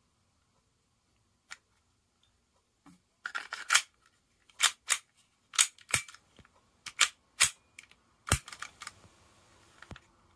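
Sharp mechanical clicks and clacks of a Sig Sauer P365 CO2 air pistol worked by hand, its slide and trigger being operated, about a dozen clicks, many in close pairs, starting a few seconds in.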